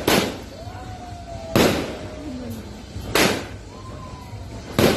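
Aerial fireworks bursting overhead: three sharp bangs about a second and a half apart, each dying away quickly.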